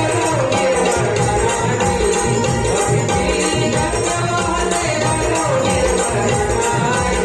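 Music from a Marathi devotional folk song: a steady drum beat with jingling percussion under sustained melody.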